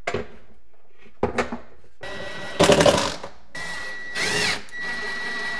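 Cordless drill driving a cabinet screw through a metal wire-shelving rail into the wall stud, its motor whining in a couple of spurts from about two seconds in. Two light knocks come before it.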